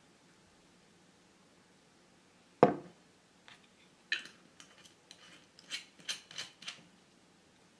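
A bottle set down on a tabletop with one sharp knock, then a string of light clicks and ticks over about three seconds as its cap is handled and screwed back on.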